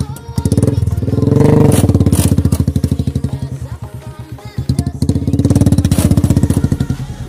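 Royal Enfield Classic 350's single-cylinder engine running under load in thick mud, revved up in two swells, about a second in and again about five seconds in, easing off between them.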